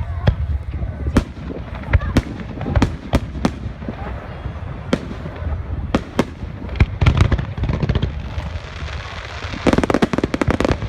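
Fireworks going off: a string of sharp bangs at irregular intervals over a low rumble, then a rapid run of crackling pops near the end.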